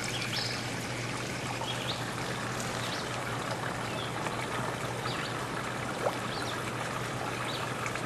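Steady trickling of running water, with a faint low hum beneath it and a few faint short high chirps.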